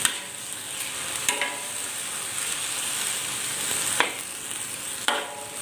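Chicken pieces sizzling in oil and soy sauce in a wok, stirred with a metal spatula that scrapes and knocks against the pan a few times, the sharpest knock about four seconds in.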